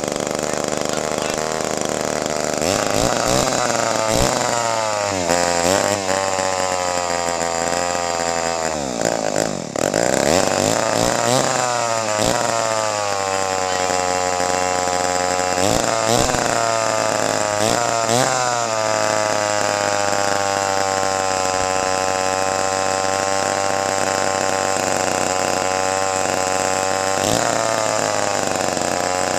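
Western Auto Wizard two-stroke chainsaw running. Its engine speed sags and picks back up several times, nearly dying about nine or ten seconds in, then runs fairly evenly through the second half. The uneven running is what the owner takes for fuel starvation from a cracked fuel line.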